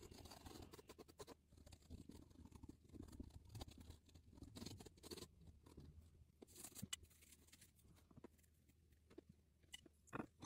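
Faint, irregular scratching and tapping of a black pen on watercolour paper as lines are drawn and dots stippled in, with a couple of slightly louder taps near the end.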